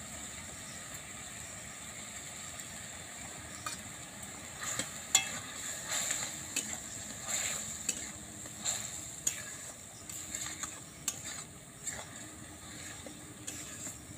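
Spatula stirring and scraping papaya chutney in a metal wok, irregular scrapes and clicks beginning a few seconds in, over a steady hiss of the chutney simmering in its sugar syrup.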